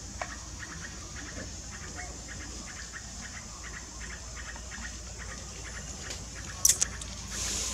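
Outdoor jungle ambience: a steady high-pitched insect hiss with a faint, quick repeating chirp. Two sharp clicks come close together near the end.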